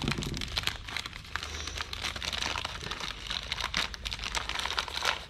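Plastic bag packaging crinkling and rustling as it is handled and opened to unwrap a new fuel filter: a steady run of irregular crackles.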